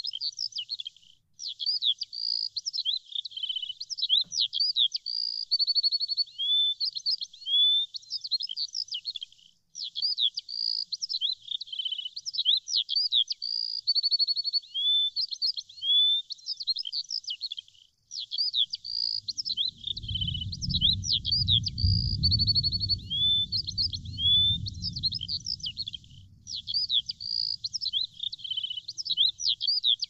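Small songbirds chirping: quick high upward-sweeping notes and a fast trill, the same sequence repeating about every eight seconds as a loop. A low rumble comes in about two-thirds of the way through.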